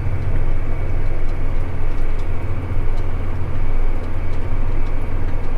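Tractor engine running steadily with a low drone, heard from inside the cab.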